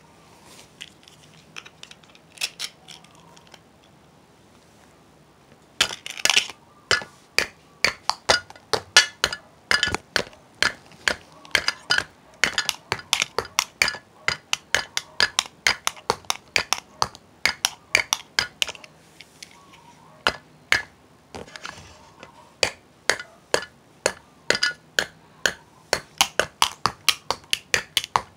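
Drumming on hard objects: after a few light taps, sharp strikes start about six seconds in and run on at several a second in an uneven, shifting rhythm. Each hit has a short, bright clinking ring.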